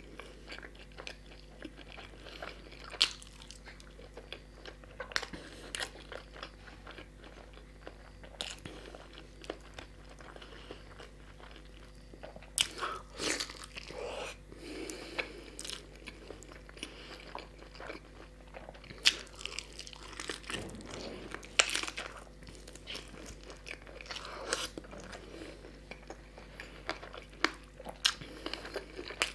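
Close-up chewing and biting of a man eating chicken curry and a masala-coated boiled egg with his fingers, with irregular sharp mouth clicks.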